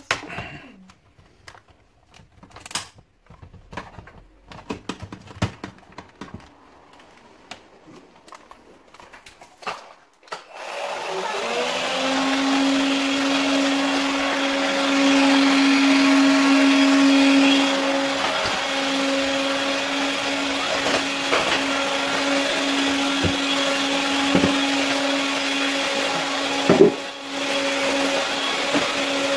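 Plastic parts of a cordless vacuum's floor nozzle clicking and snapping as they are handled. About ten seconds in, the AEG CX7 cordless stick vacuum switches on, its motor spinning up quickly to a steady whine, and runs on as it is pushed over the floor, with a knock near the end. This is a test run of the floor nozzle after its cracked hose was replaced.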